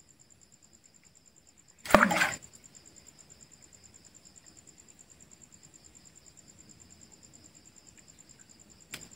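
Night insects, crickets, chirring steadily and faintly in a high, fast-pulsing trill. About two seconds in, a brief loud whooshing rustle cuts across it.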